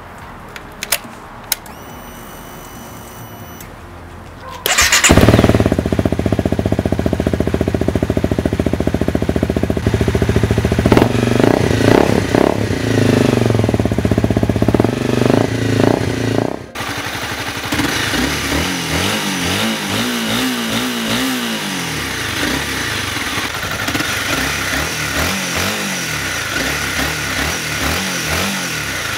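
Honda CBR250R single-cylinder engine: after a few quiet seconds with light clicks, it comes in suddenly loud about five seconds in and runs steadily. After an abrupt cut about two-thirds of the way through, it is heard quieter and revving up and down through its exhaust.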